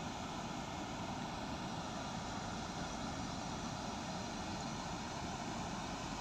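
Steady outdoor rushing noise, even and unbroken, with no distinct events.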